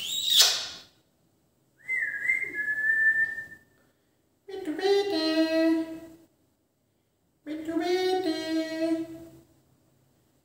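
Indian ringneck parakeet whistling: a quick rising-and-falling whistle, then a held whistle, followed by two short voice-like calls about three seconds apart.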